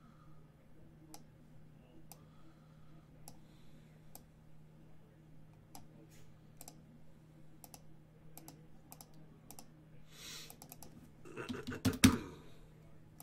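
Computer keyboard and mouse clicking: scattered single keystrokes and clicks at a low level. Near the end, a short louder burst of knocks and clatter.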